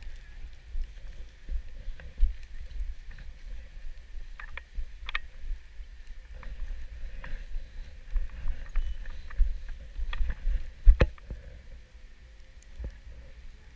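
Wind buffeting an action camera's microphone while a snowboard slides over snow, with a steady hiss and scattered sharp knocks and scrapes, the loudest about eleven seconds in.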